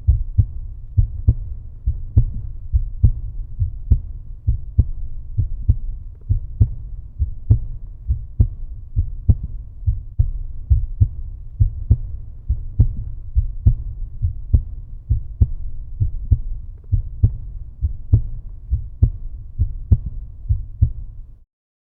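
Heartbeat sound: low, soft thumps in a steady, even rhythm of about 65 to 70 beats a minute. It cuts off suddenly near the end.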